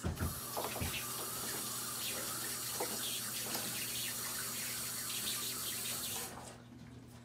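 Kitchen faucet running water into the sink, with a few light clinks, shutting off about six seconds in.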